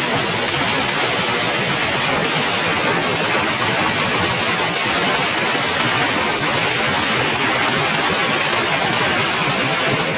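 A long string of small firecrackers going off in a rapid, unbroken crackle, the bangs running together into one steady rattle.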